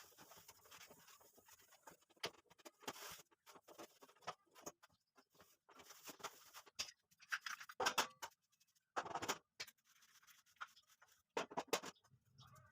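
Irregular scraping and scrubbing strokes from hand cleaning, with a few louder strokes in the second half.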